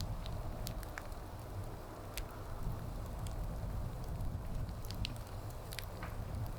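Wood fire crackling: sharp, irregular pops and snaps from the burning logs over a steady low rumble.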